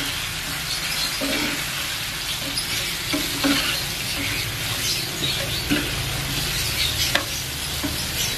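Crispy battered prawns stirred with a metal spatula in a frying pan of thickened sweet-and-sour sauce: a steady sizzle, with scattered scrapes and clicks of the spatula against the pan.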